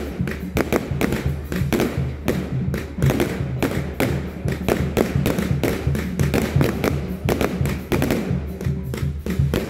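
Aerial fireworks going off overhead in rapid, irregular bangs and crackles, over steady music playing throughout.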